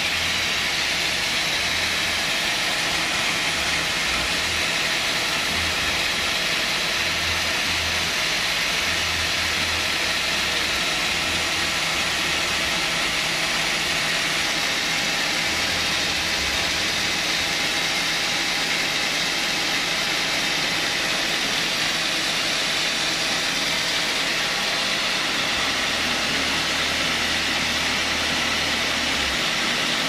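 Band sawmill running between cuts, a steady mechanical hum and hiss at a constant level while the blade turns without cutting.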